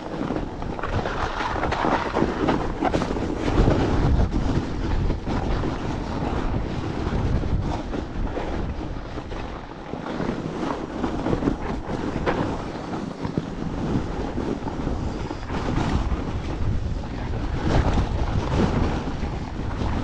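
A fat bike riding over packed snow, with wind rushing on the microphone and frequent knocks and rattles from the bike over bumps.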